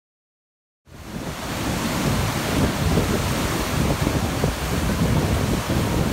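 Ocean surf washing over and around coastal rocks, with wind buffeting the microphone. It cuts in suddenly about a second in after dead silence, then runs loud and steady.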